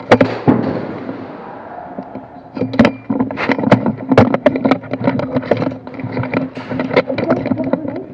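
Airsoft gunfire: irregular sharp cracks of shots and BBs striking, one at the very start, then coming thick and fast from about two and a half seconds in, over a steady hum.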